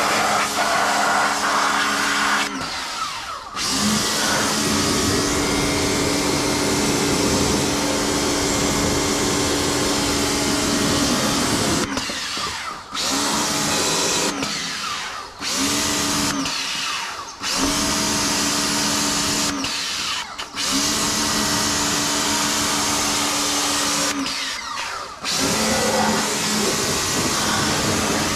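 Ingco 1400W electric pressure washer running with a steady motor hum and the hiss of its water jet. About six times the motor stops briefly and starts again, rising back to speed. This is the usual sign of the spray-gun trigger being released and squeezed on a total-stop machine.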